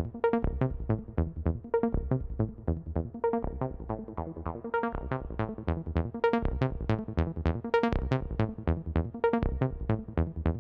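Electronic background music: a quick, steady run of short plucked synth notes with no drums.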